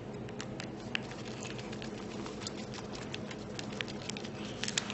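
Faint, irregular small clicks and taps of a hex driver and small metal screws being handled while fitting a motor to its mount, over a steady low hum.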